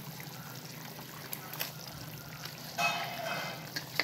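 Thick tomato-onion gravy bubbling at the boil in a pan, with a few soft clicks and plops as fried potato pieces go in. A short squeaky sound comes about three seconds in.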